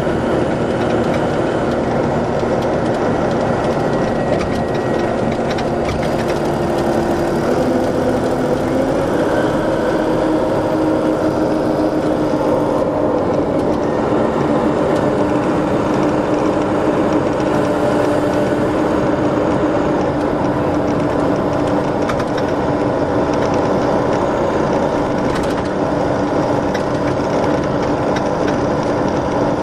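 Straight-six Detroit Diesel Series 60 EGR engine of an MCI D4500 commuter coach running steadily, its pitch rising about eight seconds in and then holding.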